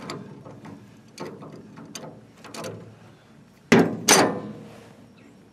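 Steel pliers clicking and scraping on a fuel-line fitting, then two loud metallic clanks about four seconds in, the second leaving a short ring.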